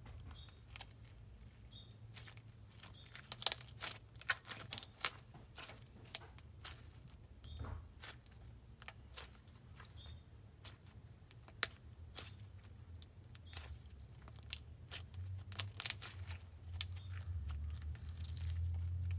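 Slime being kneaded and stretched by hand, a basic slime worked together with soft clay into a butter slime. It makes irregular sticky clicks and small pops.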